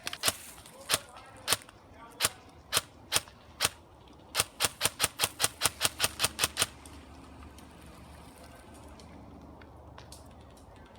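Airsoft gun firing: single shots about every half second, then a quicker string of about a dozen shots at about five a second, stopping about two-thirds of the way in.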